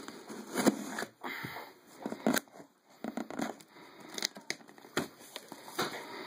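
Packaging being opened by hand: irregular crinkling, crackling and tearing with short clicks and knocks.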